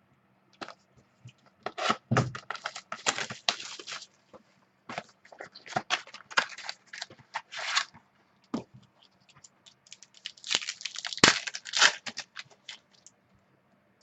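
A foil trading-card pack being torn open and crinkled, in three crackly bursts with short pauses between.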